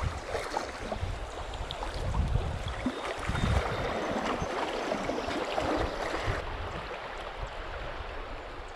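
Shallow river riffle rushing and gurgling around a kayak as it paddles through, with a few low thumps in the first few seconds. The rushing is loudest in the middle and eases off about six and a half seconds in.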